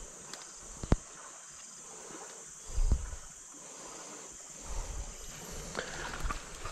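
Insects, crickets or cicadas, keep up a steady high-pitched buzz. A sharp click comes about a second in and a low bump about three seconds in.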